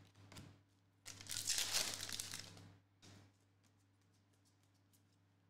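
Crinkling and rustling from basketball trading cards being shuffled and slid against each other by hand, in a few bursts, the longest starting about a second in and lasting under two seconds.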